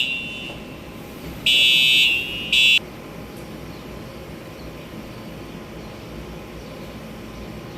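Electronic fire alarm buzzer sounding a high tone in on-off bursts, one of about a second and then a short last beep, before it stops as the alarm system is being reset after a test. A steady low hum remains.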